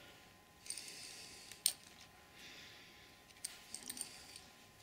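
Faint clicking and clinking of loose metal wood screws handled in the hand, one at a time, as they are laid into wet plaster. A sharp click comes about a second and a half in, and a little cluster of clinks near the end.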